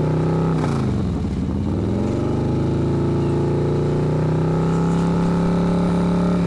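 A loud, continuous engine-like drone with a clear pitch that sags about a second in, rises again and then holds steady.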